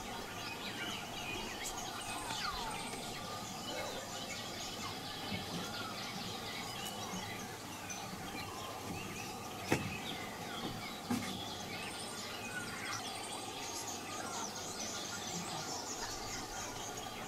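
Rainforest ambience: many birds chirping and calling at once over a steady insect hum. A sharp click comes about ten seconds in, and a fainter one a second later.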